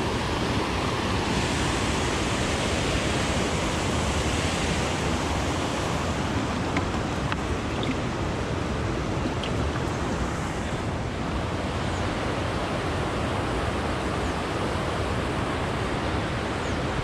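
Wind blowing across the microphone outdoors, a steady rushing noise with an uneven low rumble.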